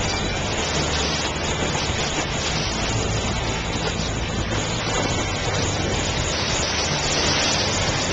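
Boat under way: a steady rush of wind and water spray with a low engine hum beneath it.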